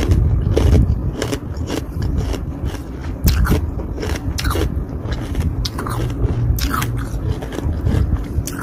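Balls of ice frozen from carbonated water being bitten and chewed close to the microphone: repeated sharp crunches, about two or three a second, over a deep rumble.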